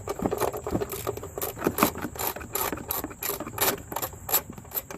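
Handling noise close to the microphone while the camera is being set in place: irregular clicks, taps and rubbing, about a dozen sharp ticks over the few seconds.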